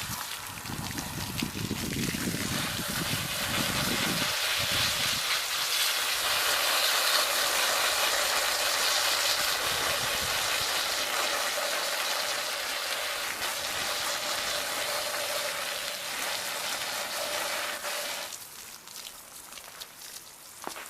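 Running water rinsing dirt out of a dirty ATV air filter, a steady rushing hiss that stops about 18 seconds in.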